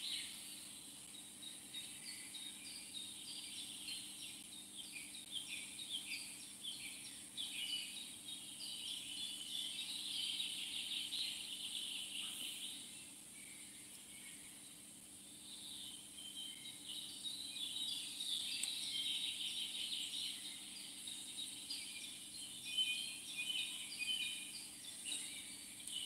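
Dense, high chirping and trilling of small outdoor creatures, fading about twelve seconds in and building again from about fifteen seconds, over a faint steady high hiss.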